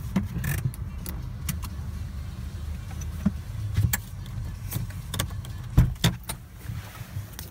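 Low steady rumble of a car heard from inside its cabin, with scattered sharp clicks and knocks, the loudest about six seconds in.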